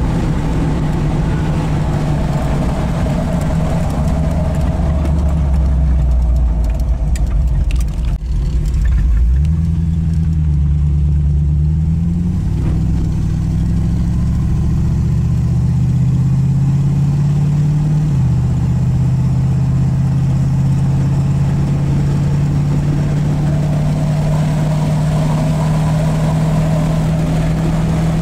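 Chevrolet 383 stroker V8 with shorty headers running at road speed, heard from inside the cabin of a 1931 Ford Model A coupe street rod. The engine note changes abruptly about nine seconds in, climbs for several seconds, then drops suddenly and settles into a steady drone.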